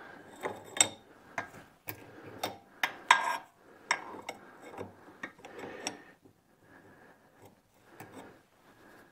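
Steel combination wrench (3/4 in, 19 mm) clinking on a hydraulic hose fitting as it is set on and worked to loosen the hose from the steering cylinder: a string of sharp metallic clicks and taps over the first six seconds, then only faint rustling.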